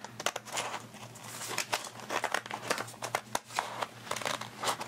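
Scissors cutting through paper in irregular snips, with paper rustling and crinkling as the sheets are handled and turned.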